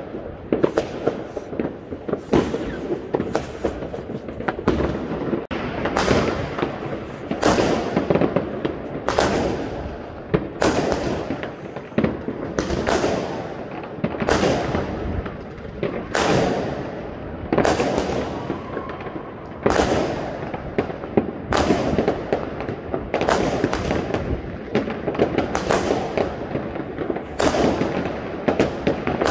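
Fireworks exploding in the sky, a near-continuous barrage of bangs, one or two a second, each trailing off in echo over a steady rumble and crackle.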